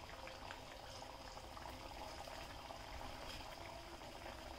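Sabudana-and-potato tikkis deep-frying in hot oil in an iron kadhai: a faint, steady bubbling sizzle with many small crackles.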